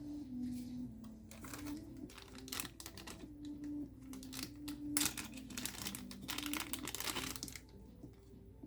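Two bursts of rapid typing on a Redragon K630 mechanical keyboard with blue clicky switches, the first about a second in and the longer one about halfway through. Soft background music with a simple stepping melody plays underneath.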